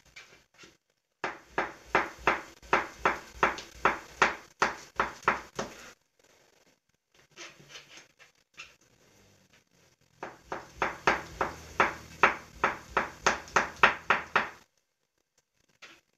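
Kitchen knife chopping sausage on a plastic cutting board: two runs of quick, even knocks of the blade on the board, about four a second, with a pause of a few seconds between them.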